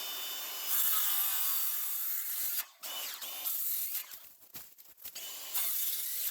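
Small cordless circular saw cutting through dry standing deadwood: a motor whine with the blade rasping in the wood. The saw runs steadily for the first two and a half seconds, then cuts out and restarts in short bursts.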